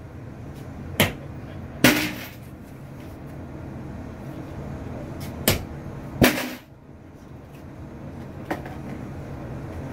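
Rolls of pennies being cracked open on a counter: five sharp knocks a few seconds apart, the two loudest followed by a short rattle of loose coins.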